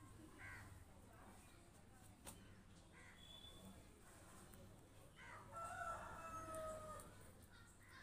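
A rooster crowing once, faintly, with the held note lasting nearly two seconds a little past halfway, after a few faint short calls earlier on.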